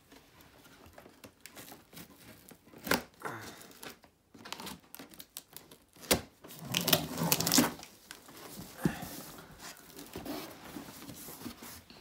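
Knife slitting the packing tape along the seam of a cardboard box, with scraping, taps and rustling of the cardboard in short, irregular strokes, busiest about halfway through.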